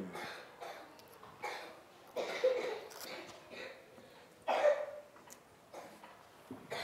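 Quiet room broken by a few short, faint coughs and throat sounds, about one and a half, two and a half and four and a half seconds in.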